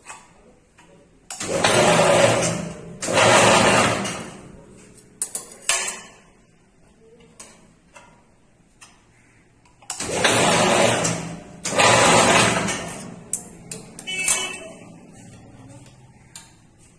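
Ring making machine bending steel bar, working in two cycles: each is a pair of loud bursts about a second long, with metallic clicks and clanks between.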